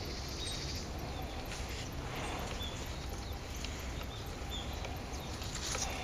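A mixed flock of small songbirds giving short, thin, high calls, scattered every second or so, over a steady low rumble.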